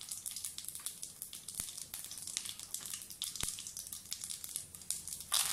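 Mustard and fenugreek seeds and dried red chillies frying in hot sesame oil: a light sizzle dotted with small crackles and pops. It swells suddenly into a louder sizzle near the end.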